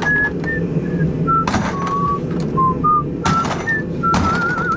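A person whistling a tune in short notes that step up and down, ending on a wavering held note, over the steady low drone of a vehicle in motion, with a few light knocks.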